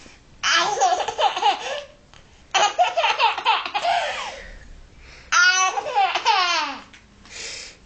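A baby laughing in three loud bouts, the third starting higher-pitched, with a fainter bit of laughter near the end.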